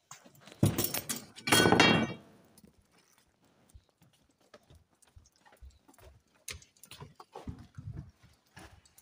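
A door clattering open, with a short squeal about a second and a half in, then footsteps on a hard floor at a walking pace.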